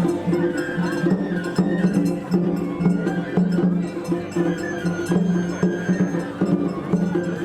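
Japanese festival hayashi music played in the street, pitched tones in short repeating phrases over a steady rhythm of sharp strikes.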